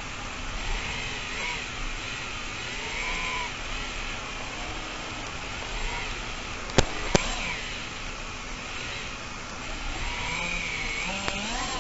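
FPV quadcopter's electric motors whining, the pitch wavering up and down with the throttle, over a steady rush of noise; two sharp clicks about seven seconds in.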